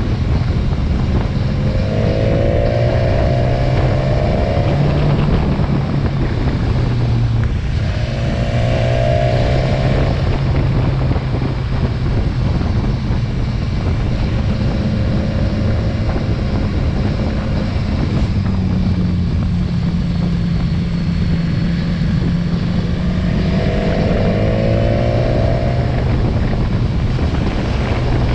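Motorcycle engine running on the move, heard from the riding bike, with a constant rush of riding noise. The engine note climbs in pitch three times as the bike accelerates.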